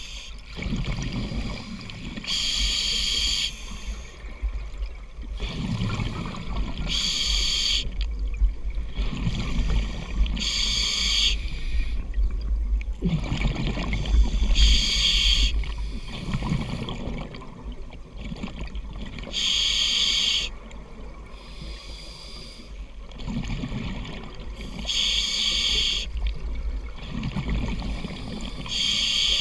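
Scuba diver breathing through a regulator, recorded underwater: a hissing inhale about every four to five seconds, seven in all, each followed by the low bubbling rumble of the exhale.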